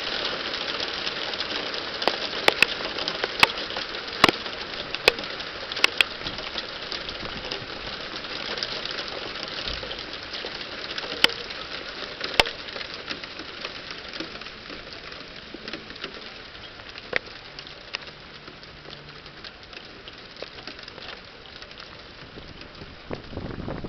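Hail falling: a dense patter of hailstones, with loud sharp cracks from individual stones striking something hard, most of them in the first half. The shower eases off in the second half.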